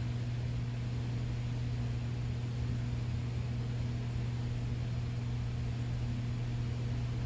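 Steady low hum with an even hiss behind it: constant room tone from a running machine.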